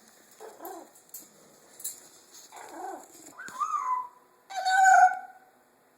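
Pet parrot making a series of short calls, one sliding down in pitch, the loudest and longest about five seconds in.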